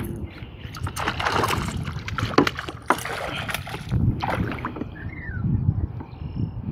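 Hooked northern pike splashing at the side of a plastic kayak, a quick run of sharp splashes and knocks, with wind rumbling on the microphone.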